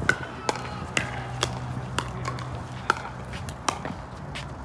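Pickleball rally: paddles hitting a plastic pickleball in a string of sharp knocks, irregularly spaced, roughly one every half second to a second.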